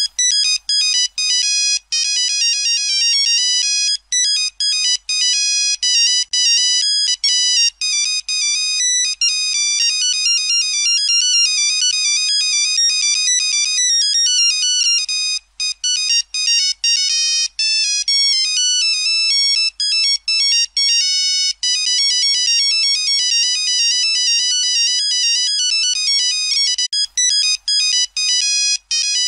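Nokia mobile phone ringtone: a fast electronic melody of short, high-pitched notes, repeating throughout with a few brief gaps.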